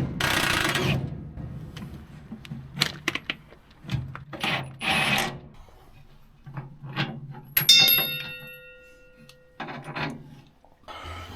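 Metal bolts and tools being handled on a steel truck frame rail: scattered clicks and clanks with two short noisy bursts, one at the start and one about five seconds in. About two thirds of the way through, a metal strike leaves a clear ringing tone for nearly two seconds.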